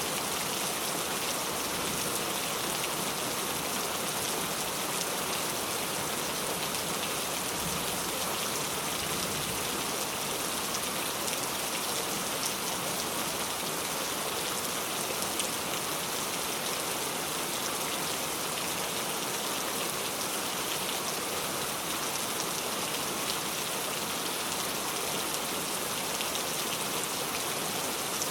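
Steady rain falling, an even hiss of many drops with scattered sharper drop taps on top.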